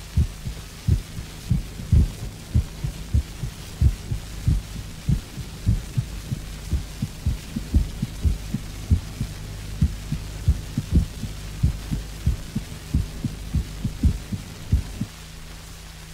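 Heart sounds of atrial fibrillation, bradysystolic form, recorded from a patient with cardiosclerosis and played from a 78 rpm shellac record. Dull low beats come at uneven intervals and with changing strength, over a steady hum and surface hiss. The beats stop about a second before the end.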